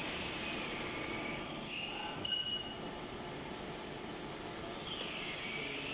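STMSI CS6150B lathe running, a steady mechanical hiss with two short high metallic squeals about two seconds in.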